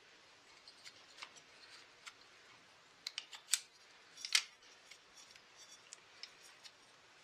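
Pliers working at a bit of twisted wire on a chainsaw's choke lever: a scatter of sharp metallic clicks and snaps. They are loudest and closest together a little past the middle.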